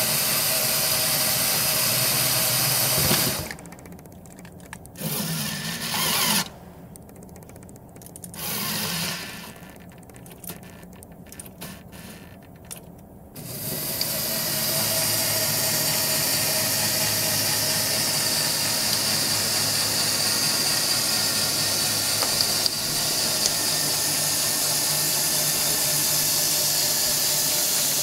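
LEGO elevator's electric motor and gear train running with a steady whir that stops after about three seconds, starts twice briefly, then runs steadily again from about halfway on.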